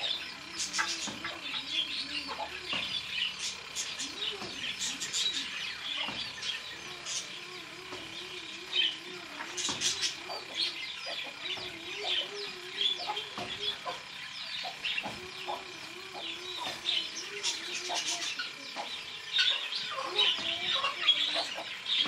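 Caged birds in an aviary chirping and chattering continuously, with a low, wavering call repeating underneath for several seconds at a time.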